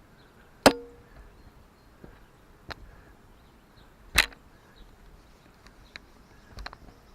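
Sharp metallic clanks of tools and parts being handled during machine repair work. Two loud strikes come, one under a second in and one past the middle, the first ringing briefly, with a few lighter knocks between and after.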